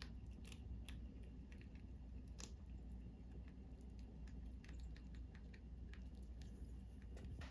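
Pet rats nibbling and chewing food: a few faint, scattered crisp clicks over a low steady hum.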